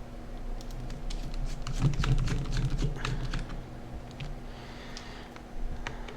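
Irregular small clicks and taps of small parts and tools being handled on a workbench, over a steady low hum.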